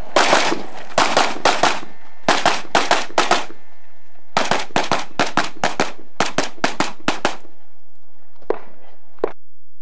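Competition semi-automatic pistol fire: fast strings of shots, about two dozen in runs of four to fourteen over the first seven seconds, then two single shots near the end.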